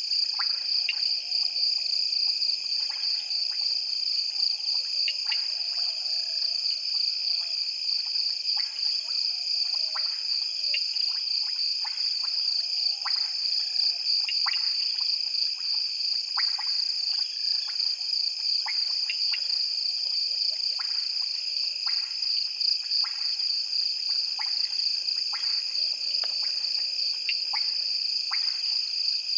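A chorus of insects and frogs: a steady high-pitched insect trill, with frogs calling in short sharp clicks about once a second and fainter low wavering calls beneath.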